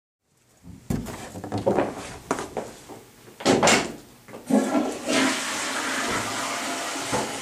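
Several knocks and clattering handling noises, then a steady rushing noise that sets in about five seconds in and keeps going.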